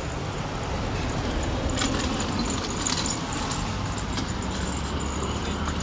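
Car traffic on a road: a car driving past over a steady low rumble.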